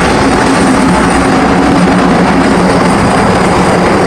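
Helicopter rotor and engine running steadily and loud.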